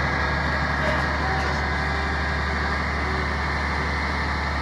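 Grapple truck's engine running steadily with a constant low hum while it drives the hydraulic grapple boom.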